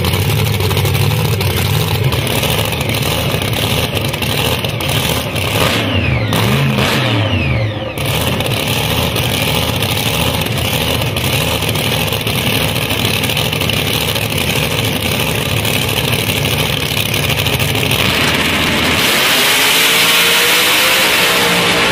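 Supercharged V8 of a 1970 Chevrolet Camaro drag car running with a heavy low rumble, revving briefly about six seconds in. Near the end it launches at full throttle, its pitch rising as it accelerates away.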